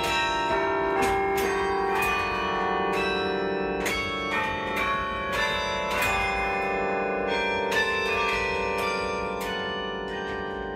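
A 78-bell carillon being played from its baton keyboard: bronze bells struck in quick runs of notes, each note ringing on under the next so the tones overlap.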